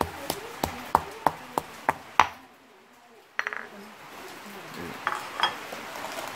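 Stone pestle pounding chilli curry paste in a granite mortar, about three strokes a second for the first two seconds. After a short pause, plates and bowls clink and clatter.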